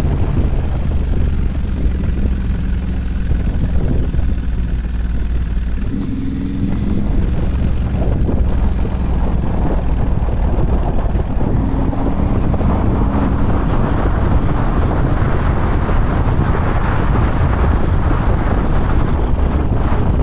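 Motorcycle engine running under way, with wind rushing over the microphone. The engine note shifts about six seconds in, and the wind noise grows louder in the second half.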